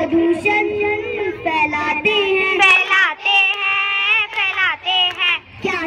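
A young girl singing a melody solo, with long held notes and sliding pitch.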